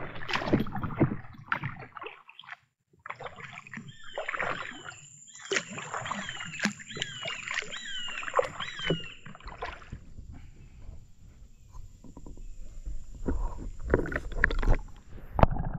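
Kayak paddling: the paddle blade dipping and splashing in the water in irregular strokes.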